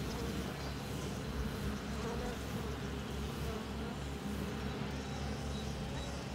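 Bees buzzing steadily around a bee hotel, with a low rumble underneath.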